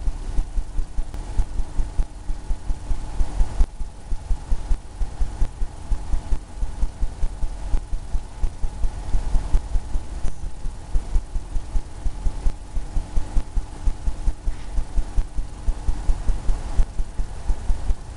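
Paintbrush dabbing against a stretched canvas, making rhythmic low thumps about three to four a second over a faint steady hum.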